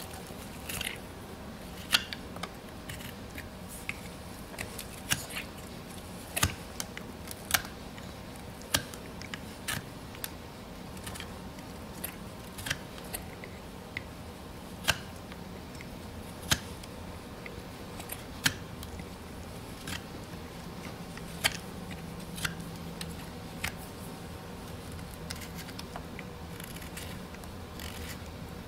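Hoof knife paring separated hoof wall from a horse's front foot: irregular sharp clicks and snips, roughly one or two a second, as the blade cuts through the horn during resection of the damaged wall.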